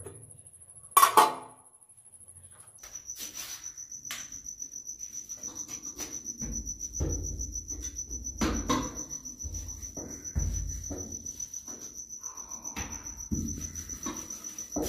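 A stainless steel kadhai lid clanks once, sharply, about a second in. After that a cricket trills steadily at a high pitch, with soft irregular bumps and knocks underneath.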